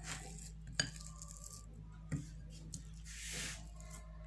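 Spatula working a filling onto burger buns on a baking tray: two sharp taps against the tray and a soft scraping swish near the end, over a low steady hum.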